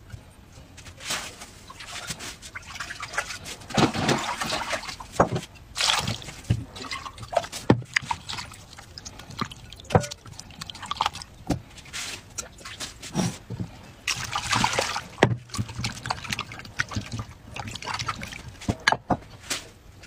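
Water splashing and sloshing in a bowl as hands rub and turn whole tomatoes to wash them, with irregular drips as the wet tomatoes are lifted from one bowl into another. The splashes come in uneven bursts, heaviest about four seconds in and again around fourteen seconds.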